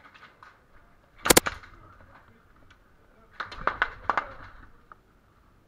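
Airsoft guns firing: a quick cluster of sharp cracks about a second in, the loudest, then a ragged run of five or six more around three and a half to four seconds.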